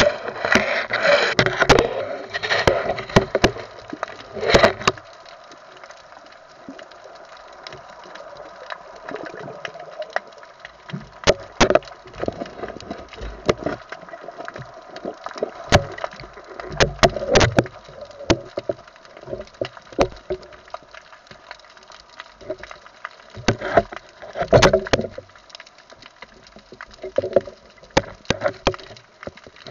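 Underwater sound around a spearfishing diver: scattered sharp clicks and knocks, with rushing, bubbly noise that is busiest for the first few seconds and comes back in short bursts a few times later.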